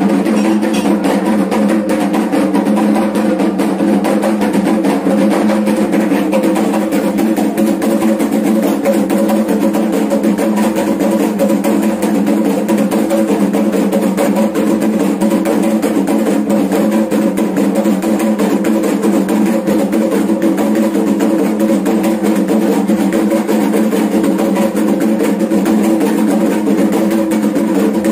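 Kendang drums beaten in a fast, unbroken rhythm, the drumming that accompanies a Dayak belian healing dance.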